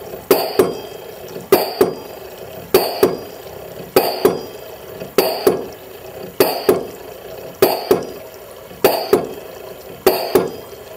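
LM10 Microfluidizer's air-driven high-pressure pump running at 12,000 PSI, its plunger cycling: a sharp double clack with each stroke, about every 1.2 seconds, each followed by a short ringing.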